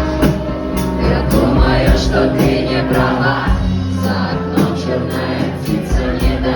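Live acoustic band music with a steady beat and several voices singing.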